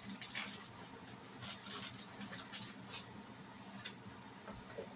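Aluminium foil crinkling in several short, faint rustles as it is folded and pressed down around a piece of fried green plantain to flatten it.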